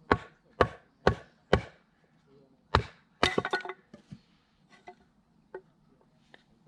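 Firewood being split: four quick chopping strikes about half a second apart, then another strike followed by a short crackle of wood splitting, and a few lighter knocks near the end.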